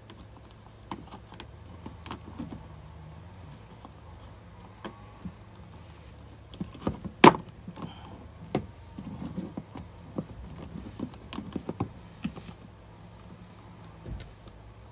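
Scattered small clicks, scrapes and knocks of hand work as insulation is stripped off the thin pump wires, with a sharper click about seven seconds in and a dull thump near the end.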